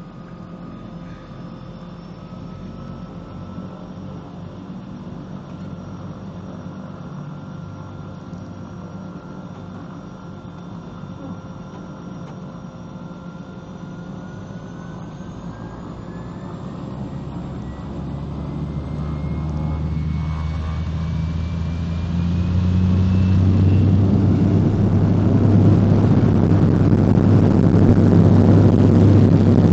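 Pratt & Whitney PT6A turboprop of a DHC-2 Turbo Beaver floatplane: a steady engine with a thin turbine whine that rises in pitch from about halfway through, as the engine is brought up to takeoff power. It grows much louder, and a heavy propeller drone dominates for the last several seconds.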